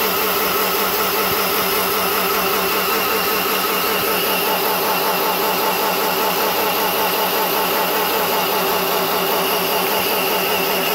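Razor electric dirt bike running flat out with its wheel spinning in a burnout, a steady motor whine with a steady level.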